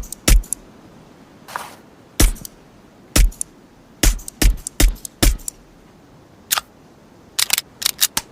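Suppressed Heckler & Koch USP Compact pistol firing a series of single shots, each a sharp crack with a low thump. The shots are irregularly spaced, with a quick run of four about half a second apart around the middle. Fainter clicks without the thump come near the end.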